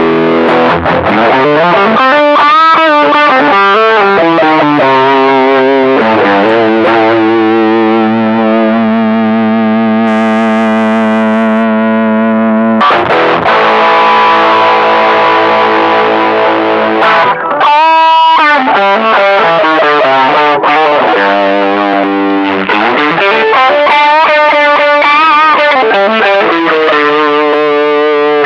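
Electric guitar played through a Caline Green Mamba overdrive pedal, switched on as it begins: distorted chords and lead lines with bent, wavering notes. A chord rings out for several seconds in the middle.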